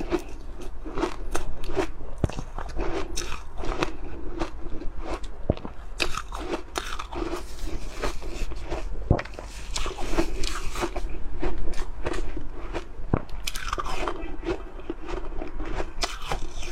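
Ice being bitten and chewed close to the microphone: a dense, irregular run of sharp crunches and cracks.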